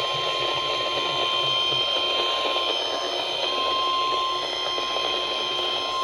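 NOAA Weather Radio 1050 Hz warning alert tone: one steady, unbroken high tone over a hiss of radio static, the signal that a warning broadcast follows.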